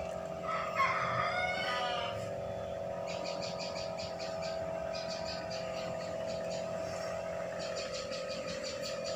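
A rooster crows in the background about a second in, over a steady hum. From about three seconds in, clusters of rapid high ticking chirps repeat.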